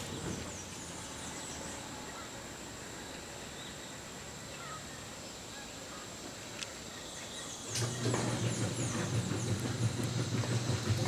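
Outdoor background with a steady high tone and short high falling chirps; about eight seconds in, a steady low motor hum comes in and the whole sound gets louder.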